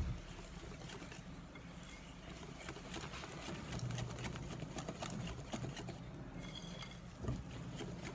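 Wire whisk beating cake batter of flour and blended tangerine juice in a glass bowl, its wires clicking and tapping rapidly against the glass.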